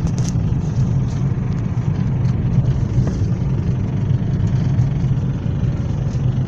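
Car engine running steadily, with a knock that the owner puts down to a clogged fuel injector and that shows up on overrun.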